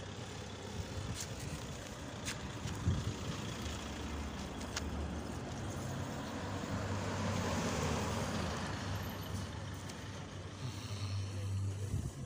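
Road traffic with a pickup truck driving past, its engine and tyre noise swelling to a peak about eight seconds in and then easing off, over a steady low rumble.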